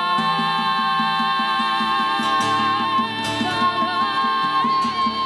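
Improvised live music: a sustained high tone over a quick, even plucked pulse in the bass, with a wavering singing voice joining near the end.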